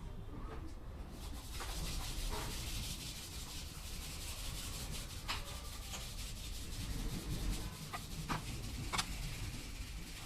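Steady scraping by hand on the engine during water pump removal, starting about a second in, with several light clicks.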